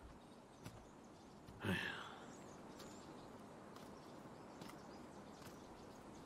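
A short, loud vocal sound, like a huff or brief exclamation, about two seconds in, followed by faint outdoor ambience with birds chirping now and then.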